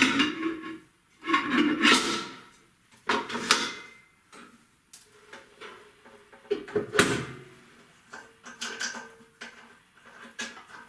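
The stainless steel bowl of a Famag Grilletta spiral mixer clanking as it is set onto the base, then metal knocks and rattles as the tilting head is lowered into place. There are several sharp clanks with brief ringing, a strong one about seven seconds in, followed by lighter rattling.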